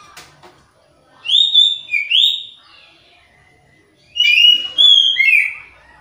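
Caged oriental magpie-robin (kacer) singing two short phrases of loud, sliding whistled notes, about a second in and again about four seconds in. The keeper takes this rather monotonous song as the sign of a bird in full song but still short of breeding drive (kurang birahi).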